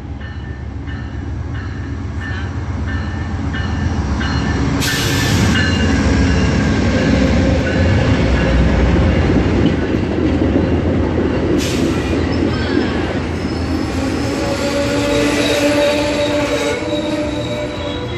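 Amtrak passenger train with double-deck cars pulling into the station and rolling past close by, growing louder as it comes in. Regular clicking in the first few seconds, two short sharp hisses, and a thin wheel squeal in the later part.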